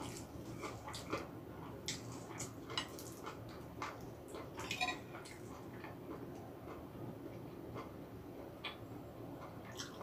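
Eating sounds: scattered small clicks and taps of chopsticks against dishes, with a few together about halfway, over soft chewing.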